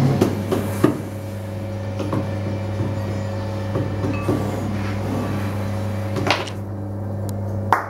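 Potter's wheel motor running with a steady low hum while a clay goblet is shaped on the spinning wheel head, with a few light knocks. Hand clapping starts right at the end.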